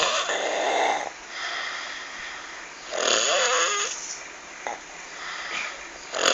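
Loud snoring with a croaky, frog-like sound: rasping breaths about every three seconds, some with a wavering, gliding croak in them.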